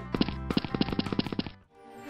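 Background music: a quick, even run of short tapped notes, about eight a second, that stops about a second and a half in, followed by a brief quiet.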